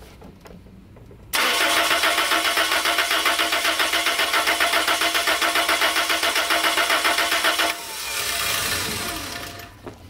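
Toyota Previa's four-cylinder engine being cranked by the starter with a fast, even pulsing, starting about a second in and stopping near the end with a softer sound falling in pitch. It turns over but does not fire: no spark, the ignition circuit left open by the removed alarm box, though fuel is getting through.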